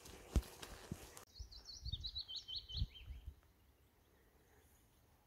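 A noisy patch with a few soft thumps, like steps on a forest track, breaks off about a second in. A songbird then sings a quick run of about nine high chirps that step down in pitch, lasting about two seconds.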